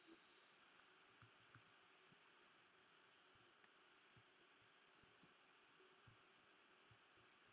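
Near silence: faint hiss with scattered, irregular faint clicks of a computer mouse.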